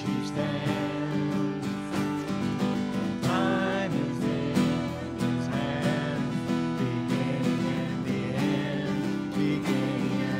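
Worship band playing a song: acoustic and electric guitars with several voices singing.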